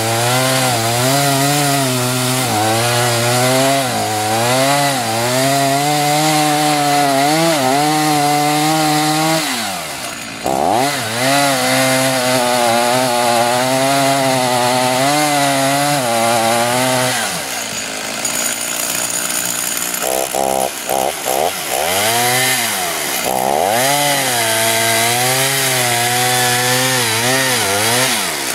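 Large two-stroke chainsaw with a 28-inch bar cutting through a dead tamarack trunk at full throttle, its pitch wavering as the chain loads and frees in the wood. It drops back twice, about ten seconds in and again around eighteen seconds with a few quick throttle blips, before it cuts again.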